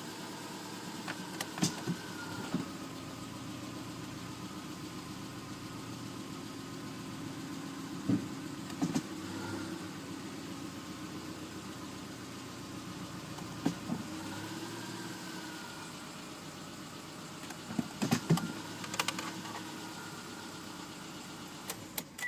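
2004 Subaru Forester XS's flat-four engine idling roughly at cold start, with sharp knocks now and then, several grouped together near the end. The rough running comes from a misfiring number 3 spark plug, fouled by oil leaking into the spark plug well.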